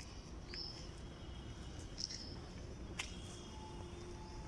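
Quiet outdoor ambience with a few short, high chirps from birds, about a second and a half apart, and one sharp click about three seconds in.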